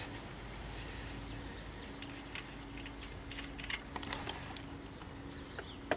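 Drain plug being unscrewed by hand from the Toro Sportlawn reel mower's engine, and hot used engine oil pouring into a plastic drain pan: faint small clicks and a soft pattering trickle, the clicks bunched about four seconds in.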